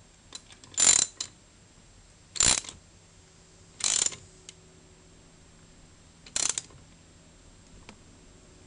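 Ratchet wrench turning the centre bolt of a flywheel puller on a GY6 scooter engine: four short bursts of ratchet clicking, a second or two apart, as the bolt is tightened to pull the flywheel.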